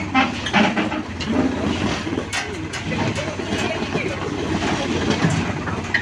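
Sonalika 47 tractor's diesel engine running as it tows a trailer-mounted concrete mixer slowly over gravel, with the towed mixer rattling and clanking over the stones.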